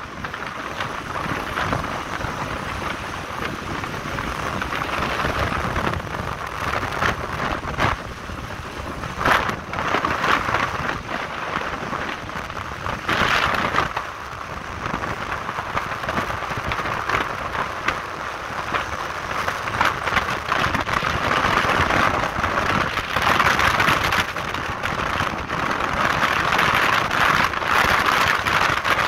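Wind rushing over the microphone of a moving motorcycle, a steady gusty rush that swells louder in the last third, over the motorcycle's running engine and tyre noise.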